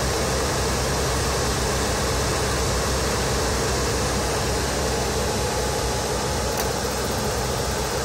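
Suburban SF-25 RV furnace's combustion blower running steadily, purging the combustion chamber before the gas valve and igniter switch on. A faint click near the end, the igniter or gas valve coming on.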